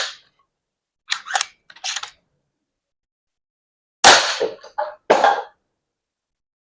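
Snow Peak M60B .22 PCP air rifle being fired: one loud, sharp shot about four seconds in, with shorter clicks about a second and two seconds in and two more sharp sounds just after the shot.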